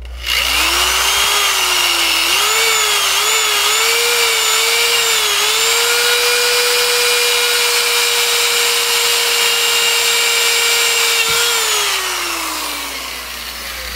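Electric drill with a hole-saw bit cutting a hole through 2-inch PVC pipe: the motor whine starts up and wavers in pitch while the saw bites into the plastic, then runs steady. Near the end the motor is released and winds down, its pitch falling over about two seconds.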